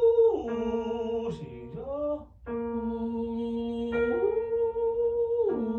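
A singing voice slides smoothly up about an octave and back down, twice, over sustained keyboard notes. It is a vocal exercise for carrying the voice through the register change without it cracking or flipping.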